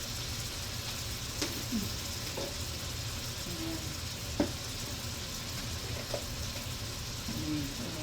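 Vegetables frying in oil in a frying pan, sizzling steadily, with a few sharp clicks and knocks, the loudest about four seconds in.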